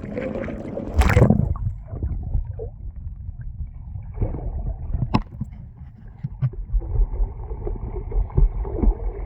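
A brief splash about a second in, then the muffled low rumble of water with a few faint clicks as the microphone goes under the surface.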